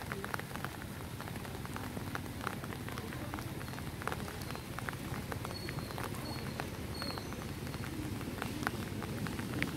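Steady rain pattering on the surface of a pond, with the scattered ticks of single drops, while water streams and drips back off a square lift net as it is raised out of the water.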